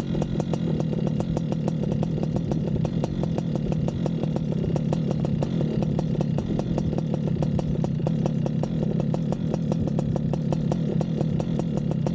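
Paramotor engine idling steadily on the ground before launch, with an even ticking running through its hum.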